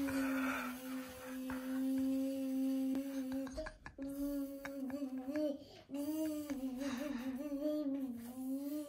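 A person humming: one long steady note, a short breath about three and a half seconds in, then a wavering, tune-like hum that moves up and down in pitch.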